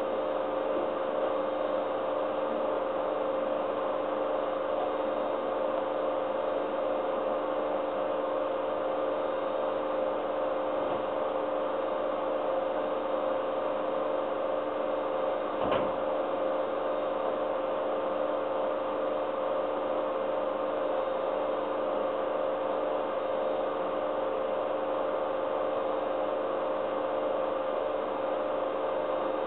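Steady hum and hiss of aquarium equipment, heard through a camera in the water, with one sharp click about sixteen seconds in.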